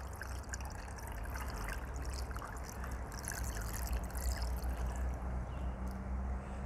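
Water pouring in a steady trickle from a plastic jug into a glass vase packed with stones, with a steady low rumble underneath.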